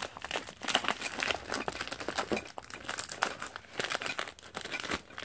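Plastic packaging being crinkled and pulled off by hand: a dense, irregular run of crackles and rustles.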